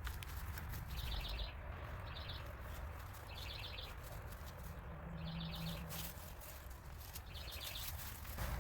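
A bird calling with short, high, rapid trills, five of them one to two seconds apart, over a faint low rumble.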